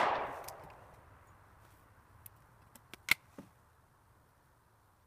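Echo of a shot from a Chiappa M6 X-Caliber survival rifle, fired with its .38 Special/.357 Magnum adapter sleeve, dying away over about a second. Then a few light clicks, the sharpest about three seconds in.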